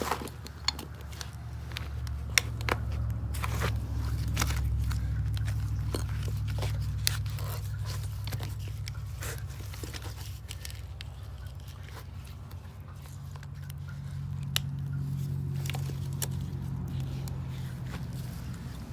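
Scattered clicks and scrapes of hands and tools working on pump wiring, over a low rumble that swells and fades twice.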